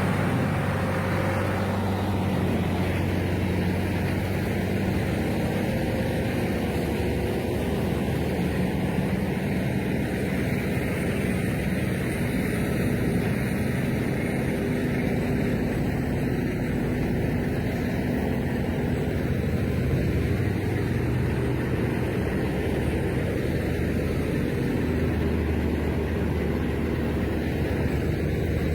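Heavy wood-processing machine's diesel engine running steadily, its low note shifting slightly about twenty seconds in.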